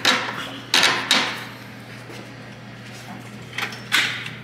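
Sharp metallic knocks and clunks as a bolt is worked through the rear upper control arm of a Mercedes-Benz E350 4Matic's suspension. Three knocks come in the first second or so, then two more near the end.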